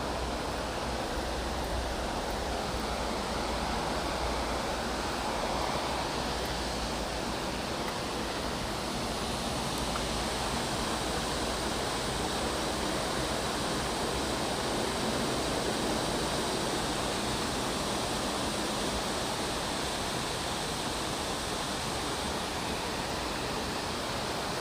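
Multnomah Falls, a tall waterfall, giving a steady rush of falling water, an even hiss across high and low pitches that does not change.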